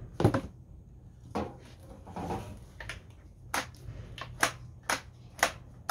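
Sharp plastic clicks from the handle of an Oregon CS1400 electric chainsaw as its lock-off button and trigger are worked. There are a couple of single clicks, then a run of about two a second in the second half.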